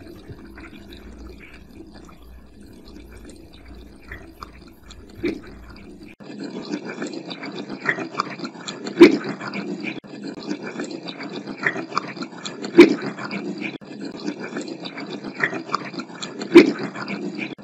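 Running tap water, filtered through AI noise-cancellation software, leaving choppy, watery fragments that sound like speech. About six seconds in it turns louder, with three sharp clicks about four seconds apart.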